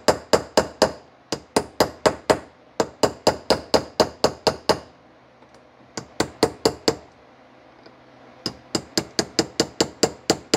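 Small hammer tapping a part into the cast body of an Allis Chalmers D14's Marvel Schebler carburetor, seating the choke-shaft plug. The taps are light and metallic, four or five a second, in short runs, with a pause of about a second near the middle.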